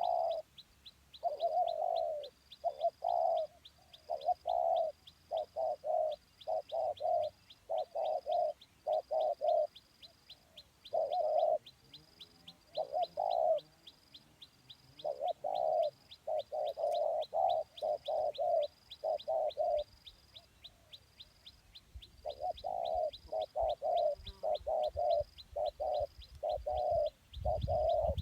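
Spotted doves cooing in short repeated phrases, several coos in quick succession with pauses between groups. A fast, regular, faint high ticking runs underneath.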